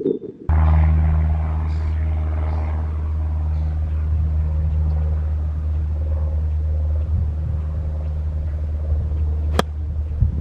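A steady low engine hum starts about half a second in and runs on. About nine and a half seconds in, a golf club strikes the ball with a single sharp crack.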